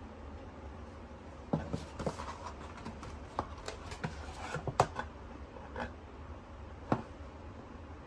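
Softcover notebooks being handled and lifted out of a cardboard box: a run of light taps, scrapes and rustles of paper and card, with two sharper knocks in the second half.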